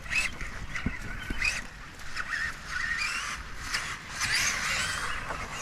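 Brushless electric motor of a Traxxas Summit RC truck whining up and down in short throttle bursts, pitch rising sharply in the second half, as the truck churns and splashes through water.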